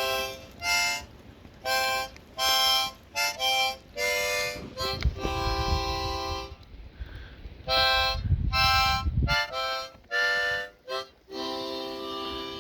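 Harmonica playing a slow run of separate notes, some short and some held for a second or more. A low rumble sits under the notes from about five to nine seconds in.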